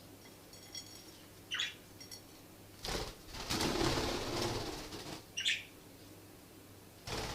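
Budgies flapping their wings in a loud rustling burst about three seconds in, lasting under two seconds, with a couple of short chirps before and after.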